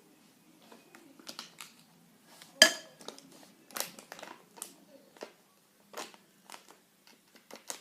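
A spoon clicking and scraping in a bowl as powder is spooned into a shaving-foam slime mixture and stirred. The noises are irregular, with one sharp ringing clink about two and a half seconds in.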